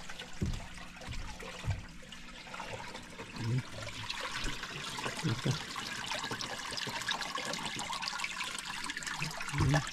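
Water trickling and splashing around a small wooden outrigger boat, with a few low knocks in the first half.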